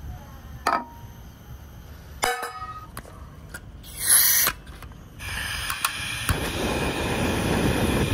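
Portable butane camping stove: metal clicks and rattles as the gas cartridge is fitted, a short loud hiss of gas about four seconds in, then from about five seconds the lit burner running with a steady hiss.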